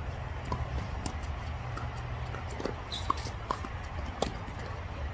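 Sounds of tennis play: a scatter of sharp knocks from the ball being struck and bouncing and from footsteps on the court, the loudest about four seconds in, over a steady low rumble.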